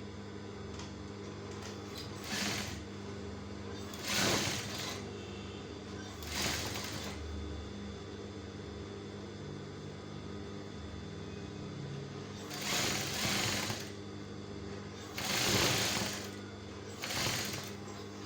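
Sewing machine running steadily while it stitches a seam along a trouser's zip flap, with several short louder surges.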